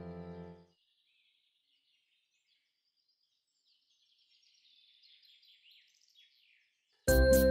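Piano music stops within the first second, leaving near silence. Faint, quick high chirps of small birds follow in the middle, and another music track with a steady beat starts near the end.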